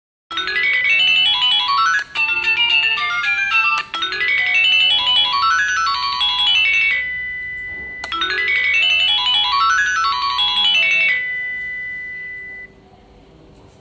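K-CPM caregiver pager receiver playing electronic ring melodies, quick beeping notes that climb and fall. Each melody is cut short by a click and starts again about two seconds in, just before four seconds, and about eight seconds in. A held tone stops near the end.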